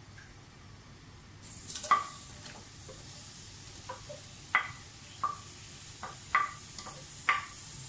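Sliced onions tipped into hot cooking oil in an aluminium pressure cooker start sizzling about one and a half seconds in, a steady hiss that keeps going. A spoon knocks against the pot several times as the onions are stirred, and the loudest knock comes as they go in.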